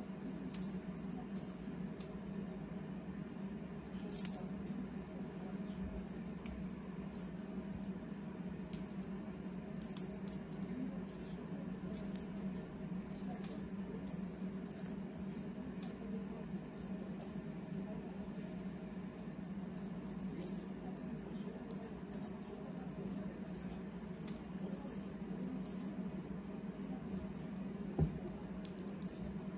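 Small bell on a feather cat teaser wand jingling in short, irregular shakes as the wand is waved and batted, with a few sharper clicks, the loudest about ten seconds in and near the end. A steady low hum runs underneath.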